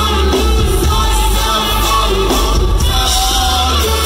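Live pop-rap band playing loud, with a heavy steady bass and drums under a sung vocal line, heard through the club's PA from within the crowd.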